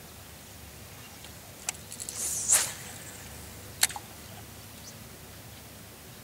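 Cast with a fishing rod: a short whoosh of the rod and line about two seconds in, between two sharp clicks.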